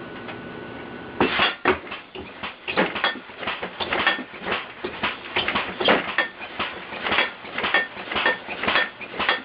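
Compressed-air-powered alarm contraption going off: after a steady hum, a rapid, irregular clanging of struck metal, like pots and pans being banged, starts about a second in and keeps going at two to three strikes a second with a ringing note.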